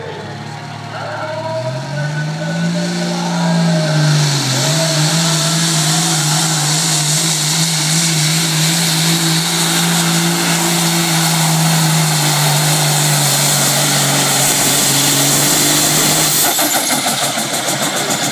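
Hot rod semi truck's diesel engine pulling a weight sled at full power: a loud, steady drone that climbs about two seconds in and holds, with a dense rushing noise over it. Near the end the engine note drops away, leaving a hissing crackle from the sparks fountaining at its stacks.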